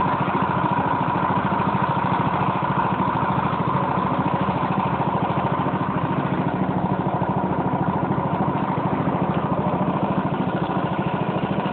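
Small motorboat's engine running steadily, with a fast, even beat.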